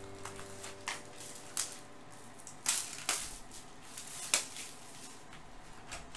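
Plastic shrink wrap crinkling and tearing as it is pulled off a sealed cardboard box of trading cards, in a series of sharp crackles, loudest around the middle.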